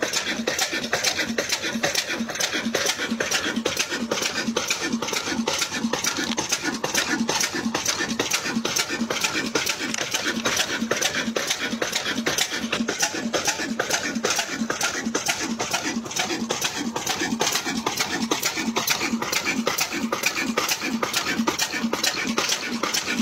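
Single-cylinder stationary diesel engine, an Azad Engineering Works, Lahore build, running steadily while it belt-drives a water pump. It chugs in an even rhythm of about three to four beats a second.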